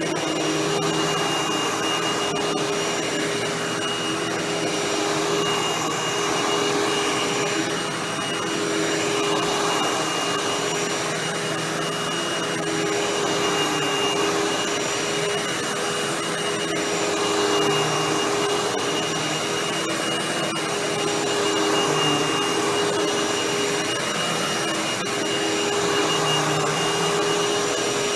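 Hoover WindTunnel Anniversary Edition bagless upright vacuum cleaner running continuously: a steady motor whine over airflow rush, swelling and easing a little every few seconds.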